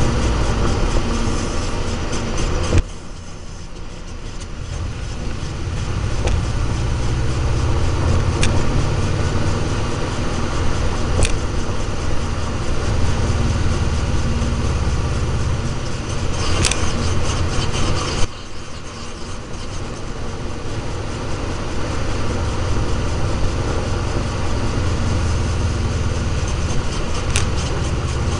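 A Subaru running with steady engine and road rumble. The level drops suddenly with a click twice, then builds back up, and a few short sharp clicks or squeaks stand out above the rumble.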